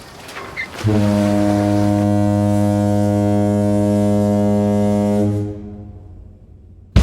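Ship's horn of the ferry Atlantic Vision sounding one long, deep, steady blast of about four and a half seconds, starting about a second in and then dying away.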